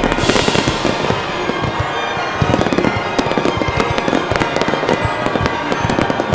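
Fireworks shells bursting and crackling in quick, dense succession, with a hissing burst at the start, over music playing.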